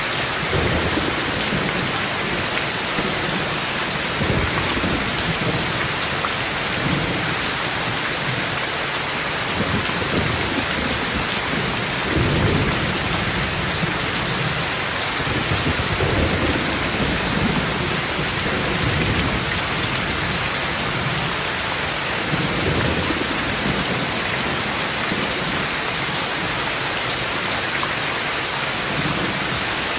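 Steady rainfall in a thunderstorm, with low rolls of thunder rumbling under the rain again and again.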